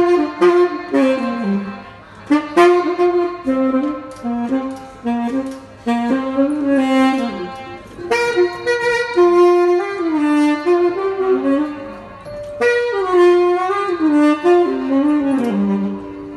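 Solo saxophone playing a melodic, jazzy line: short phrases of held notes and notes that slide and bend in pitch, with brief pauses for breath between phrases.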